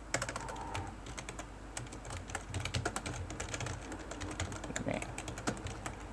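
Typing on a computer keyboard: quick, irregular keystrokes.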